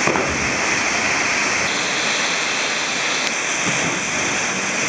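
Waterfall pouring into a plunge pool: a steady rush of falling and splashing water.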